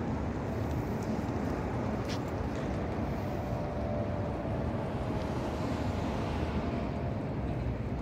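Low, steady rumble of a motor yacht's engines as it motors slowly out through the marina, mixed with wind on the microphone. A faint steady hum comes in about two and a half seconds in and fades near the end.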